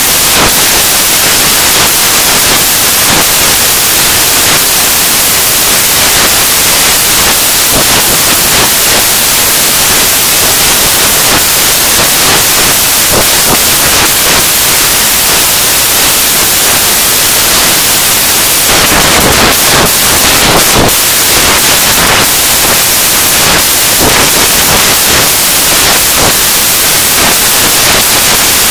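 Loud, steady static-like hiss, with a brief louder surge around two-thirds of the way through.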